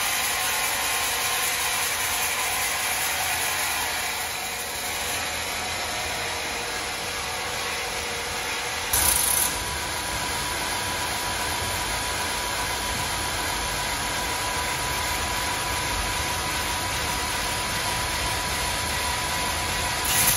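Sawmill machinery running with a steady whirring noise. A brief louder burst comes about nine seconds in, and a faint steady tone joins soon after.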